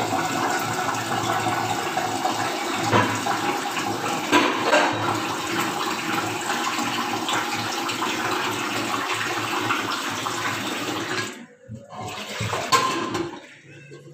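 Water running steadily from a kitchen tap, shut off about eleven seconds in, followed by a few short knocks.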